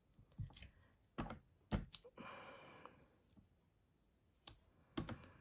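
Faint knocks of a rubber stamp being set down and pressed onto card, several times, with a short soft hiss in the middle.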